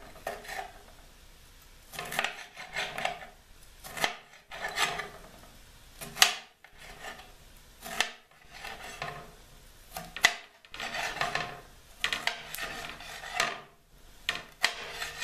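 Chef's knife slicing a red bell pepper into strips on a glass cutting board: rasping, crunchy cuts through the pepper come every second or two, several ending in a sharp click of the blade on the glass. The knife is one its user calls very dull.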